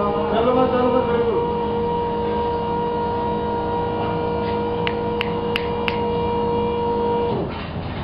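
Electric platform stacker's motor and hydraulic pump running with a steady hum, which winds down in pitch and stops about seven seconds in. A few sharp clicks come shortly before it stops.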